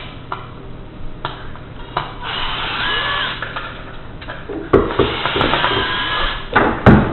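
Cordless power screwdriver running in two spells of a couple of seconds each, backing screws out of an RC truck, its whine wavering in pitch. Near the end, a few loud clunks as parts are handled.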